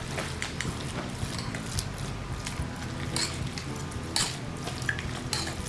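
Thick chicken salad being stirred with a spatula in a plastic mixing bowl, with a few sharp clicks in the second half, the loudest about four seconds in, over a steady low hum.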